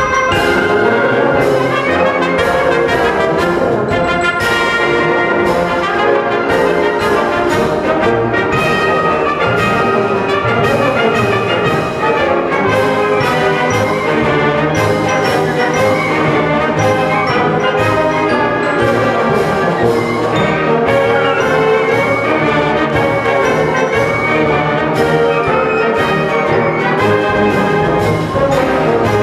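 Concert band of brass, woodwinds and percussion playing a march at full volume, with a steady, evenly marked beat.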